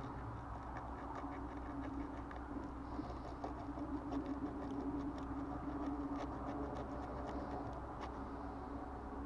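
Emery cloth rubbing on the corroded contacts of a turn signal switch: a run of small, irregular scratches and ticks over a steady low hum.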